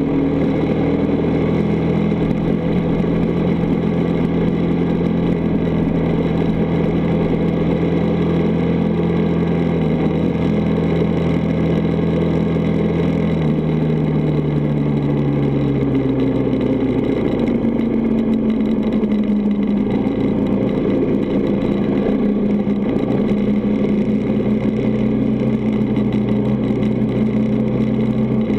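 Honda dirt bike engine running steadily at road speed; about halfway through its note drops, then steadies again.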